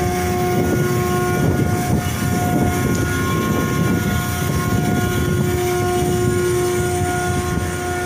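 Ship's deck machinery running steadily: a steady whine of several tones over a rough low rumble.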